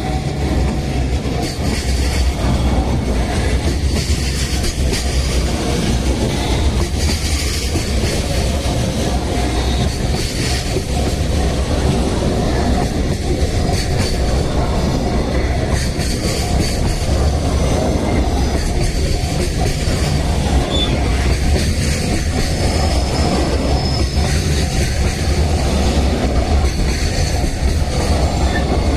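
Freight train rolling past at close range: a steady, loud rumble of wheels on rail with clattering over the joints and occasional faint wheel squeal.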